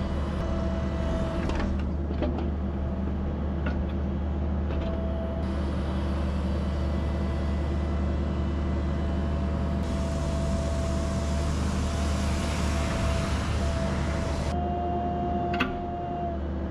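Excavator's diesel engine running steadily with a hydraulic whine, a few sharp knocks, and a hissing rush for several seconds in the middle as the machine works a boulder.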